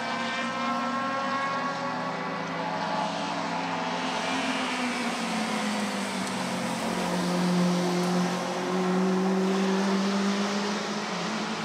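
1300 cc touring-car engines at racing speed on a wet circuit. The engine note falls over the first few seconds, then climbs and grows louder as a car comes closer, loudest about two-thirds of the way in, over a steady hiss of spray off the wet track.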